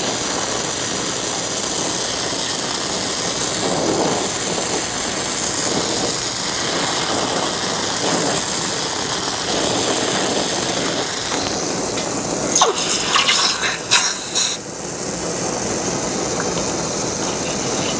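Small torch flame hissing steadily while an engine intake tube is heated to bright cherry red. About twelve seconds in, a few sharp clinks and sputtering hisses as the red-hot tube is quenched in water.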